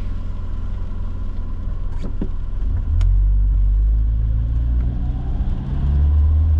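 Car driving in the rain, heard from inside the cabin: a low rumble of engine and tyres that swells louder about three seconds in as the car moves forward, with a few short clicks.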